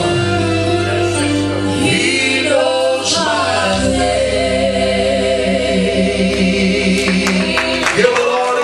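A woman singing a gospel song over instrumental backing, holding long notes toward the end of the song.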